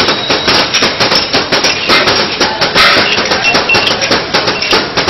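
Drinking glasses being washed and handled at high speed: a rapid, unbroken clatter of sharp knocks and clinks, several a second.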